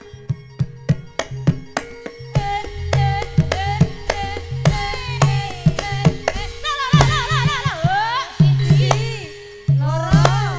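Javanese tayub music: sharp, rapid kendang drum strokes over a steady held note, with a wavering, gliding singing voice coming in about two and a half seconds in.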